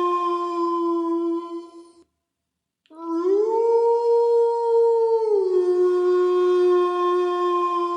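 Wolf howling: one long steady howl ends about two seconds in, then after a short silence another howl starts, rises in pitch, holds, and drops back about five seconds in to a long steady note.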